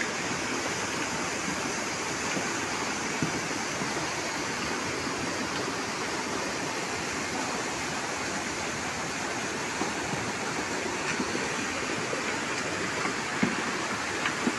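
Muddy floodwater rushing in a fast torrent over a road, a steady, unbroken rush of water.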